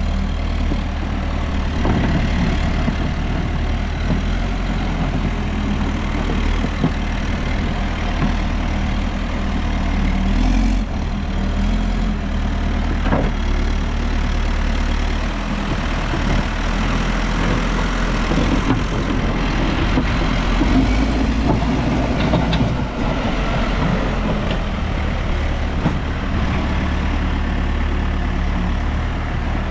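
Diesel engine of a New Holland backhoe loader running continuously while the machine works, its engine speed shifting a little midway, with a single knock about halfway through.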